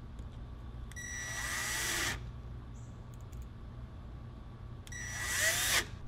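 Cordless drill driving the screws of a door latch faceplate on a low clutch setting: two short runs of about a second each, a whine that builds during the first run, with a pause between the two.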